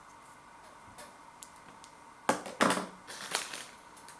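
Crunchy bacon and barbecue snack bites being bitten and chewed: a few faint crackles, then two loud crunches about two and a half seconds in, followed by a few softer crunches.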